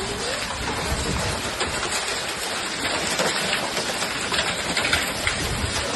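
Heavy rain mixed with hail pelting down: a dense, steady hiss with many sharp ticks of stones striking.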